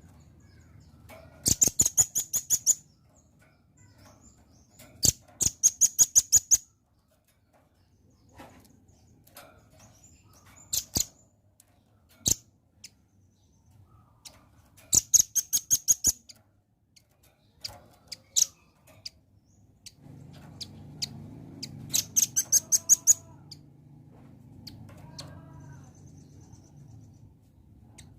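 Velvet-fronted nuthatch calling: five bursts of rapid, high, sharp chips, each about a second long, with scattered single chips between them. A low background rumble grows louder about two-thirds of the way through.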